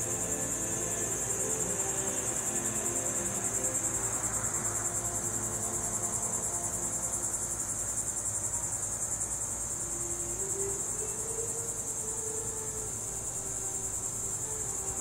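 Steady, high-pitched chorus of insects trilling with a fast pulse, over a low background rumble. It starts abruptly.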